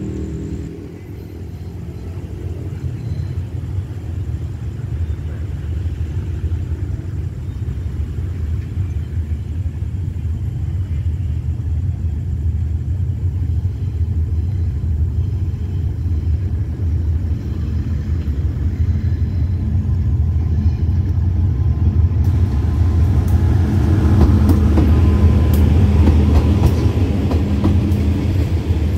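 GE diesel-electric locomotive (Thai GEA class, No. 4535) approaching at the head of an express train: a low rumble that slowly grows louder. About three quarters of the way through, wheel and rail noise joins in as the train reaches and passes the crossing.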